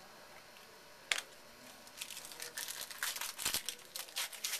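A sharp click about a second in, then the wrapper of a 2011 Donruss Elite football card pack crinkling and tearing as it is pulled open by hand.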